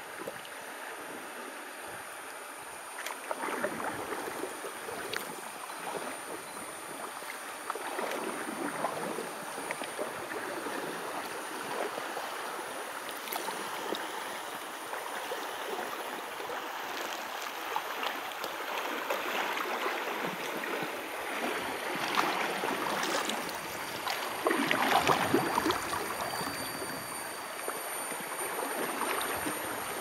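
River water rushing and splashing around a rafting boat moving downstream, with irregular splashes that grow heavier for a few seconds near the end.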